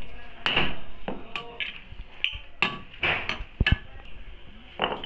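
Hammer tapping a bush into place on a motorcycle crankshaft assembly: several sharp metal strikes at an uneven pace, with brief ringing after some of them.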